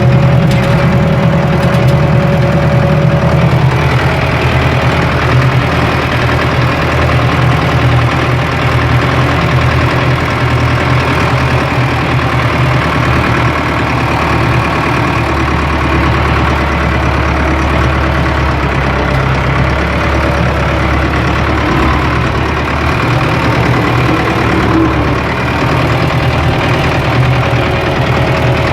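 Ford 5000 tractor engine running steadily while the tractor is driven along.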